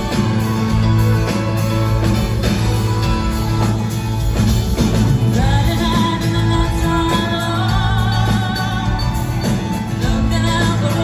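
Live band playing a pop-rock song on guitars, keyboard and drums, heard from the audience through the venue's PA; a woman's lead vocal comes in about halfway through.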